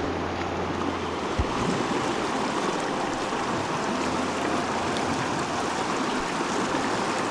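Mountain stream water flowing steadily over rocks. A low hum underneath stops with a light knock about a second and a half in.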